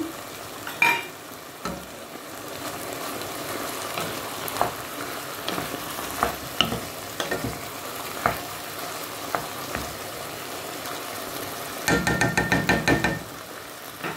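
Chicken and vegetables sizzling in a nonstick pot while a wooden spoon stirs them, the spoon clacking against the pot now and then. Near the end comes a rapid run of about nine knocks lasting about a second.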